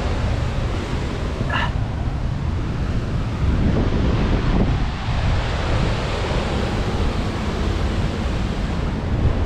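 Wind buffeting the microphone: a steady, heavy rumble of rushing noise. A brief high chirp sounds about one and a half seconds in.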